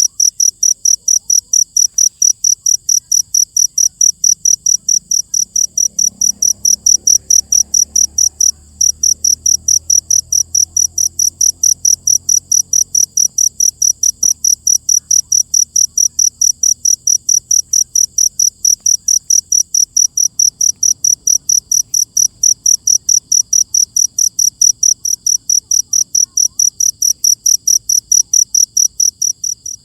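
Cricket chirping in a fast, even rhythm of about four to five high-pitched chirps a second, with one short break partway through.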